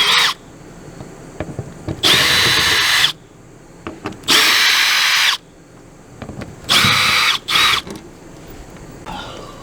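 Power drill run in short bursts of about a second each, backing out the screws that hold the RV furnace's cover; two quick runs close together near the end, with small clicks of handling between runs.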